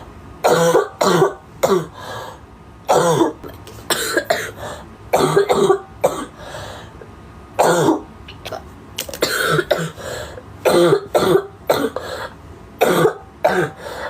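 A girl coughing repeatedly, about a dozen coughs with short gaps between them, several coming two in quick succession.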